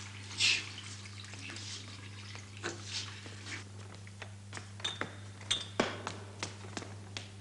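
Scattered light clicks and knocks with a few short high metallic clinks, over a steady low electrical hum.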